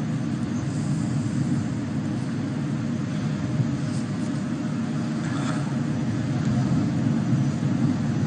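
Kawasaki C-2 military transport's twin General Electric CF6 turbofan engines in a low display pass: a steady jet rumble that grows a little louder toward the end.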